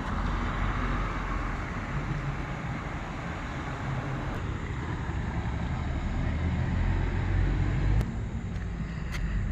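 Steady low outdoor rumble like distant traffic, with a couple of faint clicks near the end.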